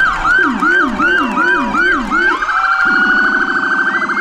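Fire truck electronic sirens sounding. One runs a fast yelp, rising and falling about three times a second, then switches about two and a half seconds in to a rapid pulsing tone. A slower siren sounds underneath.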